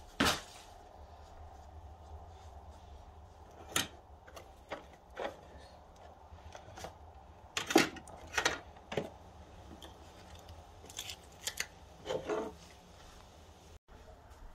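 Scattered handling noises: knocks, clicks and rustles of cardboard boxes and decorations being picked up and set down on a table, with a sharp knock at the start and the loudest cluster about eight seconds in.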